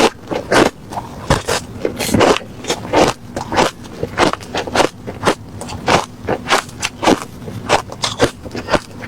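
Refrozen crushed ice being chewed close to the microphone: a steady run of crisp crunches, about two a second.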